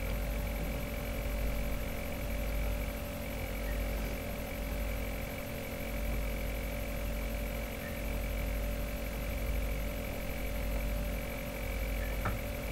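Steady electrical background hum, a low rumble with a few faint constant tones above it, and a faint click near the end.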